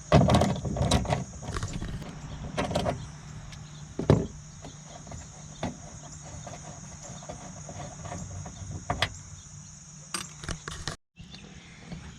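Clicks and knocks of a socket ratchet and metal parts inside a car door as the window regulator bracket bolts are undone, densest in the first second and a half, then single knocks every second or two.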